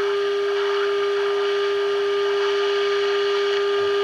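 Steady single-pitched test tone over faint hiss from the speaker of a 1948 Emerson model 543 AA5 radio. The radio is receiving a signal generator's tone-modulated test signal while its antenna trimmer is peaked during alignment.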